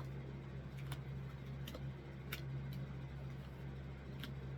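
Tarot cards being laid out on a table: about five scattered, sharp little clicks and snaps of card on card and tabletop, over a steady low hum.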